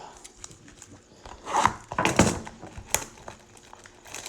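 A trading-card blaster box being torn open: packaging rustling, crinkling and tearing, with a louder burst of tearing about two seconds in and light clicks and rustles around it.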